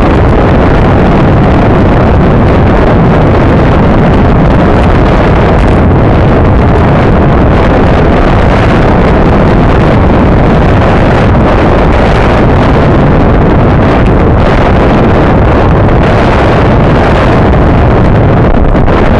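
Loud, steady wind noise buffeting the microphone of a bicycle-mounted camera on a road bike riding at race speed.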